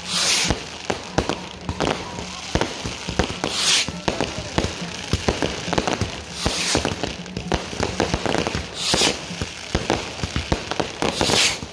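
Fireworks display: a dense run of sharp cracks and pops from bursting aerial shells, with a loud hiss about every two and a half seconds.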